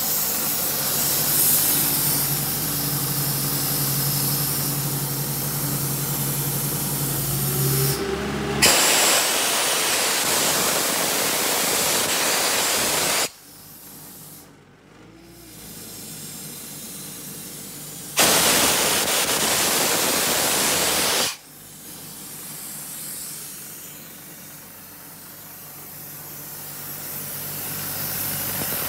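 Cummins diesel engine of a Doosan trailer-mounted air compressor running steadily, with a brief rise in pitch about eight seconds in. Then compressed air hisses out loudly and evenly for about five seconds, cuts off sharply, and blasts again for about three seconds, leaving the machine running more quietly in between and after.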